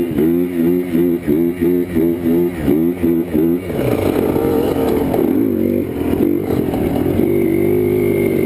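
Yamaha Blaster ATV's single-cylinder two-stroke engine revving in quick on-off throttle bursts for the first few seconds, then held at a steadier, higher pitch as the quad is ridden on.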